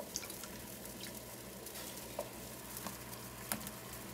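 Pot of soup broth coming to a boil, bubbling with scattered small pops and clicks over a steady low hum.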